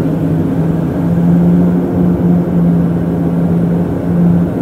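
Turboprop engine and propeller drone heard from inside the cabin of a high-wing turboprop airliner on its landing approach: a loud, steady low hum that wavers slightly.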